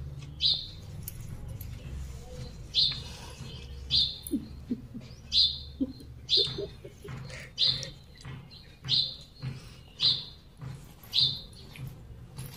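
A bird calling the same short, high chirp over and over, about once a second.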